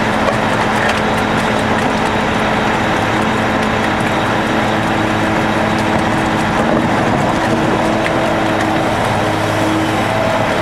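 Heavy diesel earthmoving machinery, a trencher and an excavator, running steadily under load while digging a trench, with a slight shift in the engine note about two-thirds of the way through.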